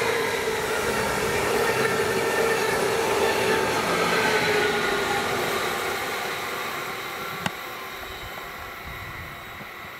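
Electric train running past, a steady whine over its running noise, fading away over the last few seconds. A single sharp click about seven and a half seconds in.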